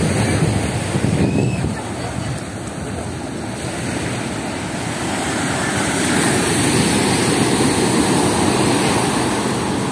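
Big ocean waves surging and breaking onto the beach, a steady wash of surf that swells louder in the second half, with wind on the microphone.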